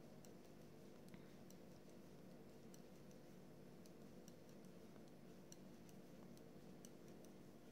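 Faint, irregular light clicks of metal knitting needles tapping together as stitches are knitted, over a low steady hum.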